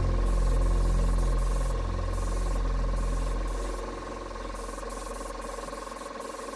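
Air compressor motor running with a low hum that winds down and stops about four seconds in, under the hiss of a paint spray gun, which breaks off briefly a few times as the trigger is released.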